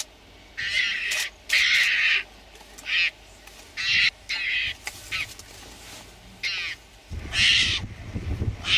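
A mongoose giving a string of harsh, snarling calls, about ten in all, each lasting well under a second with short gaps between them. A low rumble joins in about seven seconds in.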